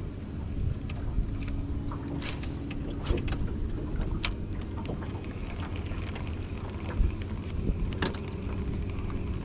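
Steady low rumble of wind and choppy water around a small metal jon boat, with a few light, sharp clicks.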